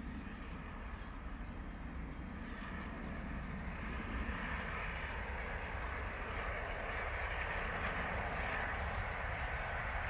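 Peppercorn A1 three-cylinder Pacific steam locomotive 60163 Tornado hauling a passenger train, working hard. Its exhaust and the running noise of the train grow steadily louder as it approaches.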